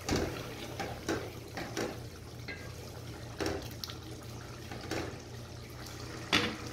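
A metal clank as the lid comes off a steel pot, then a wooden spoon stirring and lifting thick chickpea curry (chole), with wet stirring sounds and a few knocks of the spoon against the pot.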